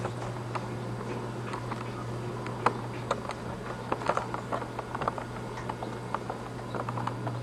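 Handheld camcorder's own noise: a steady low hum with scattered small clicks and knocks from the camera being handled and swung around, the sharpest about a third of the way in.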